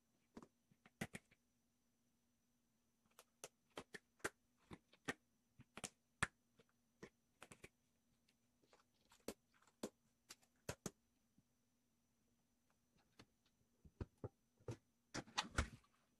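A kitten's claws scratching and tapping at the floor by a heat register, in a burying motion: scattered sharp clicks and scrapes, with a denser scraping clatter near the end, over a faint steady hum.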